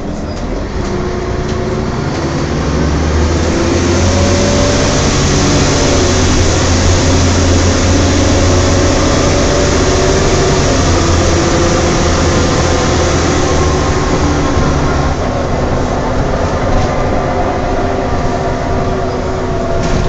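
Volvo Olympian double-decker bus under way, heard from the upper deck: drivetrain and road noise build over the first few seconds and then hold steady over a low rumble. Several whining tones slowly rise in pitch, the strange noise put down to the differential.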